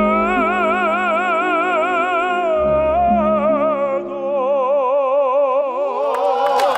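A male opera singer holds a long high note with a wide, even vibrato, then moves to a lower held note about four seconds in, over steady instrumental accompaniment. The voice ends near the end as the piece closes.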